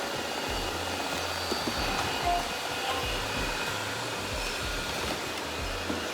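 Robot vacuum running: a steady suction hiss from its fan and brushes, with no change in level.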